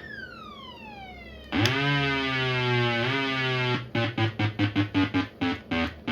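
Troots SD1 siren running through its tones: a falling sweep, then about a second and a half in a loud, low, steady horn-like tone held for about two seconds, then a fast pulsing yelp at about five pulses a second.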